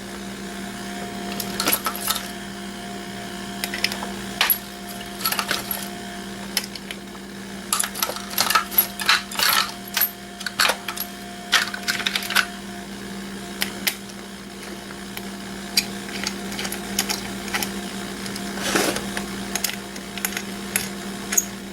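Small metal parts and hand tools clinking and clattering on a work surface, in irregular bunches, as an alarm control panel's circuit boards are pulled apart. A steady low hum runs underneath.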